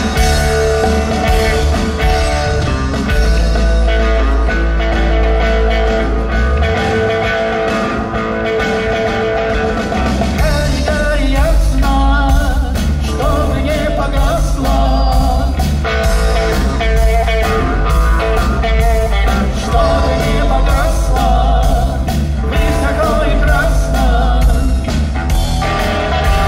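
Live rock band playing a song: electric guitar, electric bass and drum kit together, with steady drum hits under sustained guitar and bass notes.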